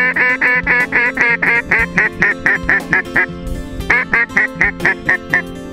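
Duck call blown in a long, rapid run of quacks at about four or five a second, then, after a short pause, a shorter run of about seven quacks.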